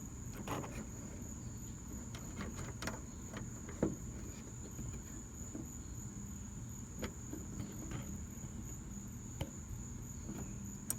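A faint, steady high-pitched whine with scattered light clicks and taps.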